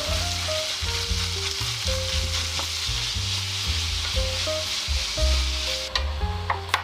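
Food sizzling as it fries in a hot pan, a steady hiss that dies down near the end, where a few sharp clicks sound, over soft background music.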